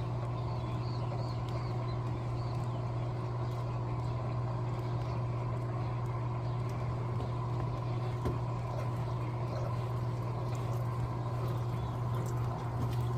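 Electrolux LTA15 washing machine running through its wash cycle, a steady motor hum with machine noise over it.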